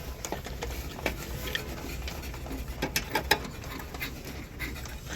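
Irregular light clicks and knocks of parts and tools being handled, over a low steady hum, with the sharpest knock a little after three seconds in.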